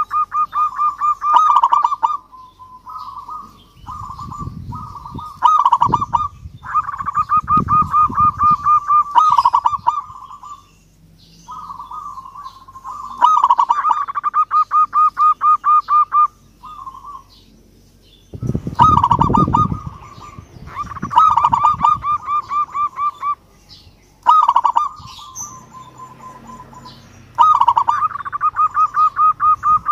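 Zebra dove (perkutut) cooing: phrase after phrase of rapid, pulsing coos. Some phrases are short, others run for about three seconds.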